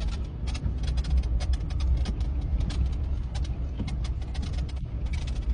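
A vehicle driving slowly on an unpaved road: steady low engine and road rumble with frequent small clicks and rattles.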